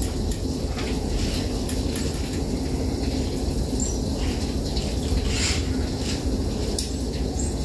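Steady low background hum, with a few faint light clicks and brief faint high chirps.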